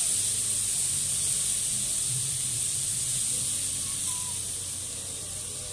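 Water hissing as it boils off a large hot iron griddle, loudest at first and slowly dying away.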